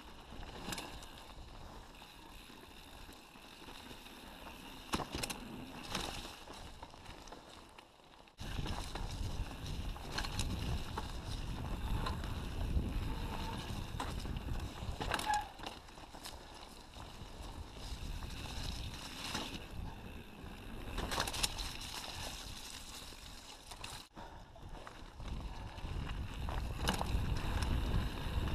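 Mountain bike ridden along a dirt singletrack: a low rumble of wind and tyres on the camera microphone, with frequent rattles and knocks from the bike over bumps. It gets abruptly louder about eight seconds in.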